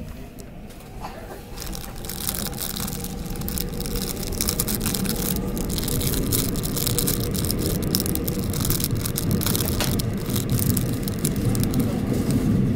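Seoul Metro Line 6 subway train running, heard from inside the carriage: a steady rumble of wheels and running gear that grows steadily louder.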